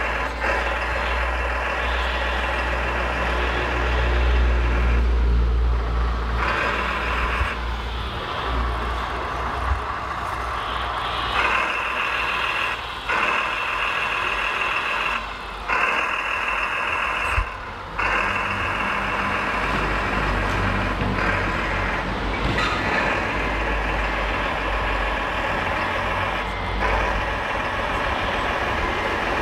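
Hydraulic pump of a radio-controlled MAN truck's loader crane whirring in stretches as the crane and grab bucket move, with short breaks where it stops and starts again about halfway through. A low steady rumble runs underneath.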